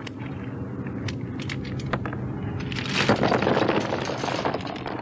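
Hard clams clicking and clattering as they are tipped out of a clam rake's wire basket into a small wooden boat, over a steady low hum. About three seconds in, a louder dense rush of noise lasts more than a second.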